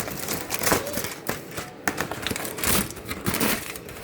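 A rapid, irregular series of clicks and knocks, like handling or tapping on hard surfaces.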